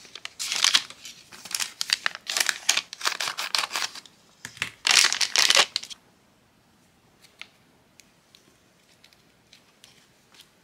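Foil slime packet crinkling and being torn open, in loud rustling spells for the first six seconds. After that only faint soft clicks as the sticky slime is handled and pressed around a ball of dough.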